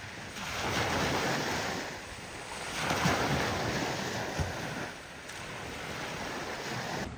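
Sea waves washing onto the shore, the wash swelling and easing every couple of seconds, with wind buffeting the microphone.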